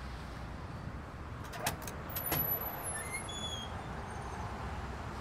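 A bar's metal street door clicks at its latch a few times, about one and a half to two and a half seconds in, then gives brief faint squeaks as it opens. Under it runs a steady low rumble of city traffic.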